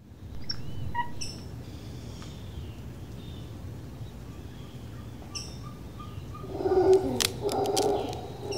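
Birds chirping with short, scattered high calls over a steady low background, then a louder, lower call with a few sharp clicks for about two seconds near the end.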